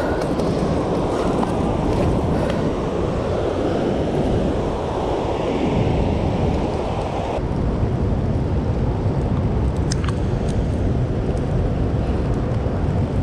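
Steady roar of water rushing out of a dam's open gates, with wind rumbling on the microphone. Partway through it turns deeper and duller, and a few faint ticks come shortly after.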